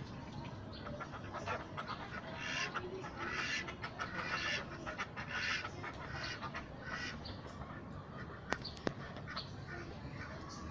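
Domestic ducks quacking in a rasping run of calls, about two a second, that dies down after about seven seconds. Two sharp clicks follow near the end.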